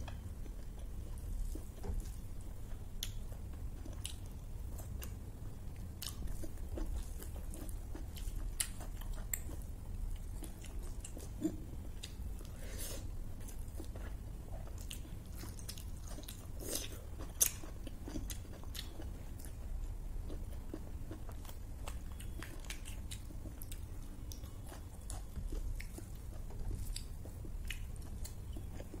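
A person chewing and biting food, with scattered crisp crunches, the loudest about 17 seconds in, over a steady low hum.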